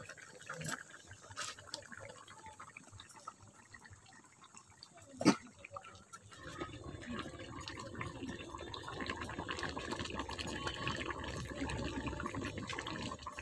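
Curry bubbling as it simmers in an aluminium kadhai on a gas stove. It is faint at first, with a sharp clink about five seconds in, and becomes a steadier, louder bubbling from about six seconds on.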